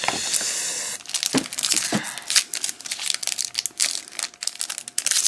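Plastic wrapper of a trading-card pack crinkling and tearing as it is handled and opened. About a second of steady rustling hiss, then dense irregular crackles.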